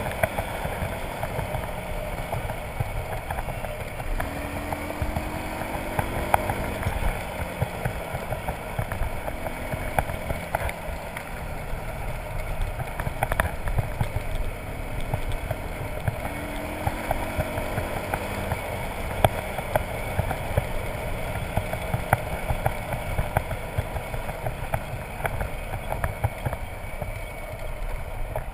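Motorcycle engine running under way, its note climbing a couple of times as the rider opens the throttle. Tyres crunch over loose gravel, with scattered stone clicks.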